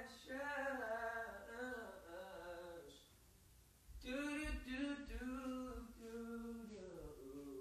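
A voice singing unaccompanied in two long, held phrases, with a short pause about three seconds in before the second phrase.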